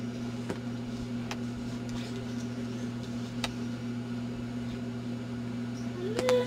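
A baby gives a short coo near the end that rises and then falls in pitch, over a steady low hum and a few faint clicks.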